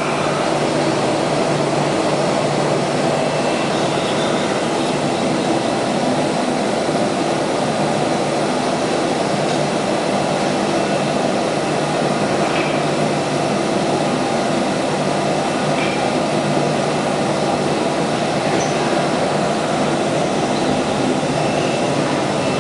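Steady mechanical drone of a CNC router with a rotary automatic tool changer running, holding an even level throughout.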